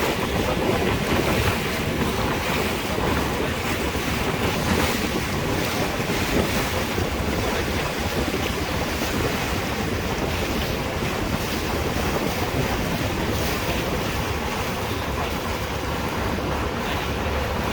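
Wind buffeting the microphone over the steady rush of sea water, as on a boat under way at sea.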